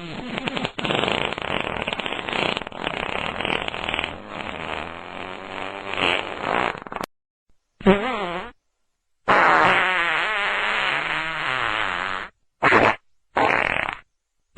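A run of farts, each a rough, sputtering sound. A long one lasts about seven seconds and cuts off suddenly. After a short silence come a short one, a second long one of about three seconds, and two quick short ones.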